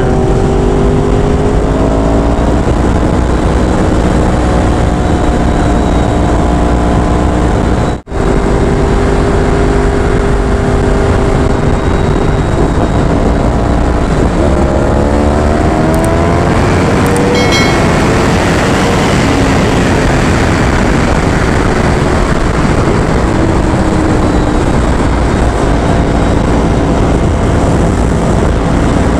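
2015 Yamaha R1 crossplane-crank inline-four riding along under way, its pitch climbing and levelling off several times through the gears. Heavy wind rush on the microphone grows louder and swamps the engine in the second half. The sound cuts out for a moment about eight seconds in.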